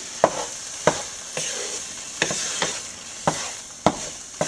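Wooden spatula stirring and scraping couscous upma in a metal pan, knocking against the pan about twice a second. A faint steady sizzle runs underneath as the last of the water cooks off.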